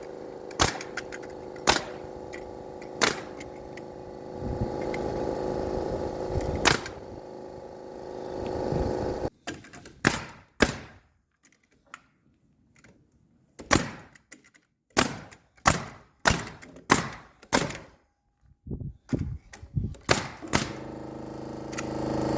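Hammer blows on wood: single strikes spaced apart at first, then quicker runs of several blows in the second half. A steady hum runs underneath and cuts off about nine seconds in.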